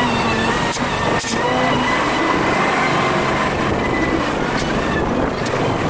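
Volvo BM 4300 wheel loader working, its diesel engine and hydraulics heard sped up fast-forward, which raises their pitch, with wavering whines and a few sharp clanks.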